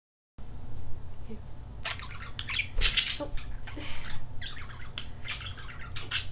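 Pet budgies chattering in a rapid string of short, high chirps and squawks, starting about two seconds in.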